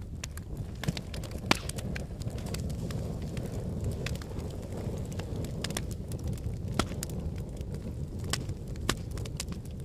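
Wood fire in a fireplace crackling: sharp irregular pops and snaps over a steady low rumble of the flames, with a louder pop about a second and a half in.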